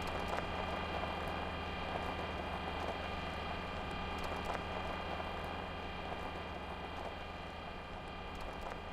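A steady, unchanging hum made of several held tones over a constant hiss, from the soundtrack of an animation of the Ingenuity Mars helicopter.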